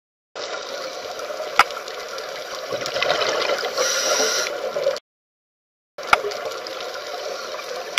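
Water sloshing and gurgling with a few sharp clicks, in two stretches that start and stop abruptly, with about a second of silence between them about five seconds in.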